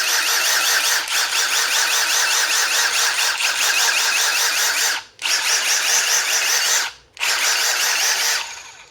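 Milwaukee M18 Gen 3 brushless impact driver motor spinning with no load, giving a loud, high-pitched whine. It cuts off sharply twice, then winds down gradually near the end instead of stopping sharply.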